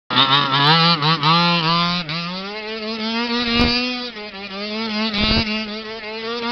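HPI Baja 5T 1/5-scale RC truck's small two-stroke petrol engine revving in several quick blips, then held at a steady buzzing pitch as the truck spins donuts on grass.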